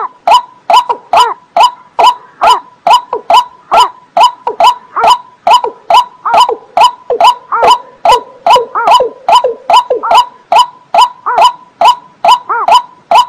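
Watercock calling in a fast, even series of short 'kok' notes, about three a second, without a break. It is a bird call recording played to lure the birds in.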